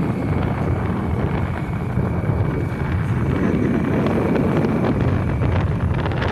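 Strong wind blowing across the microphone in stormy weather, a steady low rumble.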